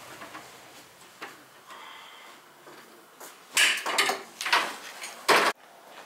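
A few loud scraping, rustling noises in a cluster, followed by one more short burst that cuts off suddenly.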